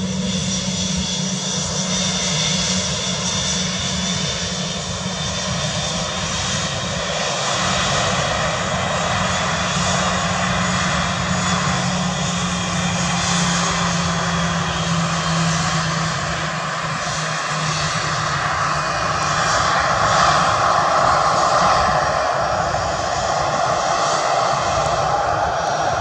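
Airbus A320's twin CFM56 turbofan engines running as the airliner taxis along the runway: a steady jet whine over a rushing roar that grows a little louder about twenty seconds in.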